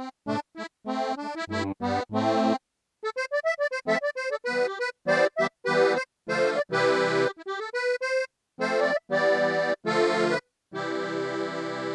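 Wersi City Rack KF2 organ module playing a reedy, accordion-like preset: quick runs of short staccato notes and chords that cut off sharply, then a long held chord near the end.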